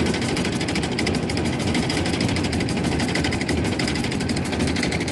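Small boat's engine running steadily close by, with a fast, even pulsing chatter.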